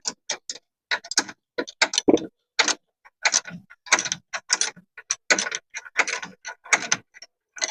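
Irregular sharp metallic clicks and ticks, about two to three a second, from hand tools and hardware being worked on the engine bay.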